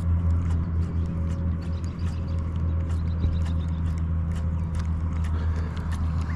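Baitcasting reel being cranked in short spurts as a walk-the-dog topwater lure is worked in, giving many light irregular clicks, over a steady low hum.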